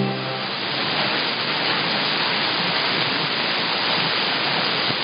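Steady shortwave radio hiss from a received broadcast signal between program items, cut off above about 5 kHz by the receiver's audio bandwidth. The last of a music item dies away just at the start.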